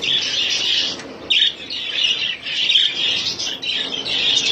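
A flock of budgerigars chattering and chirping continuously, a dense warble with a brief lull about a second in.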